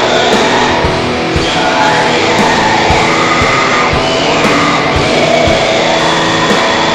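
Raw black metal music: heavily distorted electric guitars and drums in a dense, lo-fi mix, with low drum hits thudding unevenly under the guitar wash.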